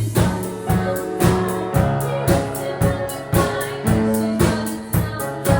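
Live band playing between sung lines: a drum beat strikes about twice a second under held chords.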